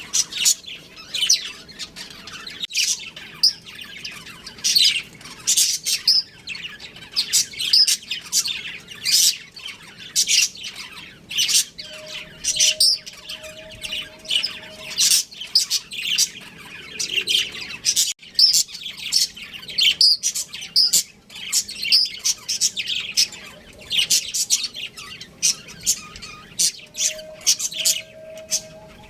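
A pair of budgerigars chirping and chattering without pause, a dense run of short, high chirps one after another.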